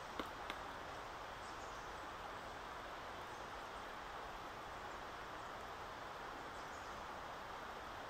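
Pileated woodpecker pecking at a rotting, moss-covered snag: two sharp knocks in the first half-second, then the pecking stops. After that there is only a steady, even hiss of background.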